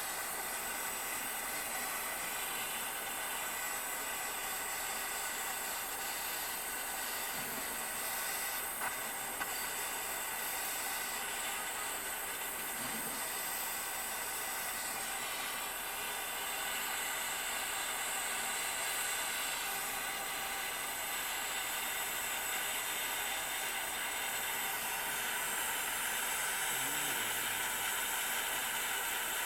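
Soldering torch flame hissing steadily as it heats a silver ring to flow the solder paste.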